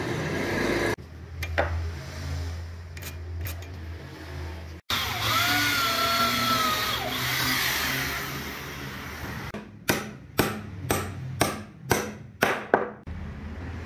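Cordless drill whining as it bores into a thick solid-wood plank, winding down after a couple of seconds. Then a claw hammer strikes the wood about eight times in quick succession.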